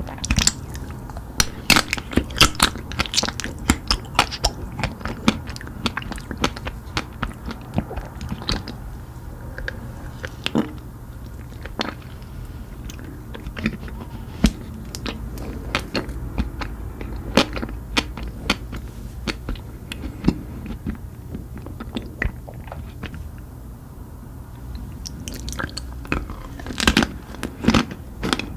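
Close-miked eating: crunchy bites and chewing, a steady run of sharp crackles that comes thickest in the first few seconds and again near the end, over a low steady hum.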